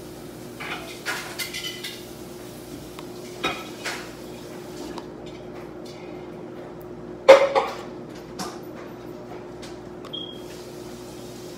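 Scattered clinks and clatters of dishes and cutlery, with one loud knock and short rattle about seven seconds in, over a steady faint hum.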